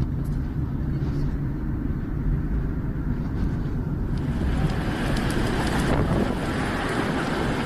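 Car road and engine rumble heard from inside the cabin while driving. About four seconds in it gives way to a broader rushing noise of storm wind blowing across the microphone.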